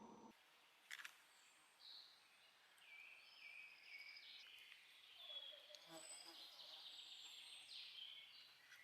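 Faint woodland birdsong: several birds singing short whistled and trilled phrases that overlap. There is a sharp click about a second in and a soft knock near six seconds.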